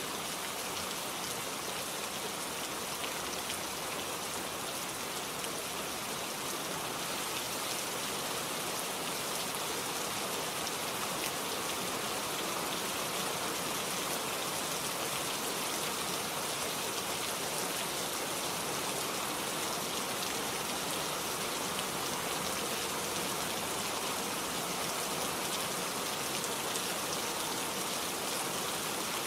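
Steady rain falling in a forest, an even hiss of many drops pattering on leaves and surfaces.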